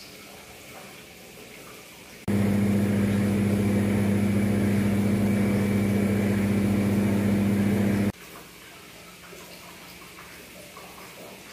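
A loud, steady machine hum with a low buzz. It cuts in abruptly about two seconds in and cuts off just as abruptly about six seconds later, with only faint room noise on either side.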